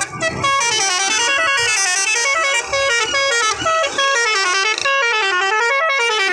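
Musical vehicle horn playing a fast looping tune of short stepping notes that rise and fall over and over, in a bright reedy tone, with a few brief breaks.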